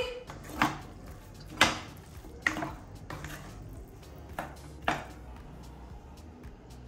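Dishes and utensils clinking, about half a dozen separate sharp knocks.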